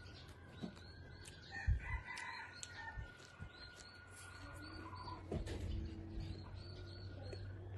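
A rooster crowing in the background, loudest about two seconds in, with small chirps going on around it. Under it, close chewing and mouth sounds of someone eating, with a few soft thumps.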